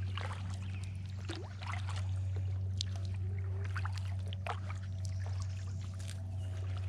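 A steady low hum, switched on just before, holds under light water trickling and dripping around a kayak gliding through still water.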